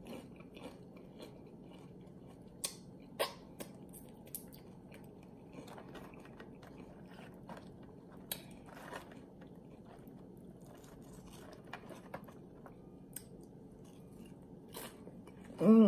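A person chewing and crunching loaded tortilla-chip nachos with the mouth close to the microphone: faint wet chewing broken by a few sharp, scattered crunches. A short falling hum of the voice comes right at the end.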